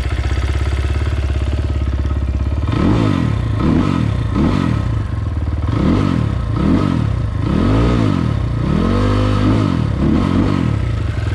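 2020 SSR SR300 dirt bike's single-cylinder four-stroke engine, running on a newly fitted Lectron carburetor, idles for a few seconds and is then blipped about eight times, the revs rising and falling quickly, with one rev held a little longer near the end. The rider hears a little bit of bog as the revs come up.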